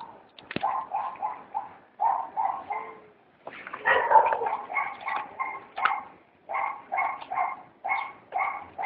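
Bullmastiff puppy making short, high yips in quick runs of three or four, repeated about once a second while it plays with a stick, with a louder burst about four seconds in.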